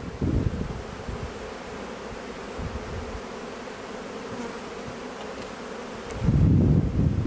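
A honeybee colony buzzing steadily around an opened hive as its frames are lifted out. About six seconds in, wind buffets the microphone with a low rumble.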